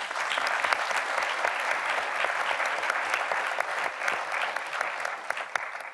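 Audience applauding, many hands clapping, tapering off near the end.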